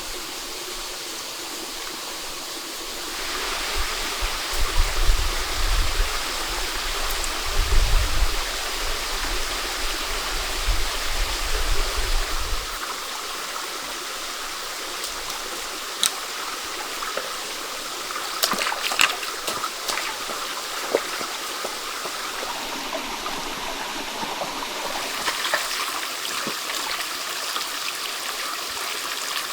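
Stream water flowing and trickling steadily. Low rumbles come through in the first half, and a few sharp clicks or knocks follow later.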